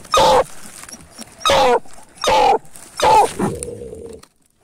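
Hunting dog baying at a paca holed up in its burrow: four loud barks less than a second apart, the last one trailing into a short held lower tone.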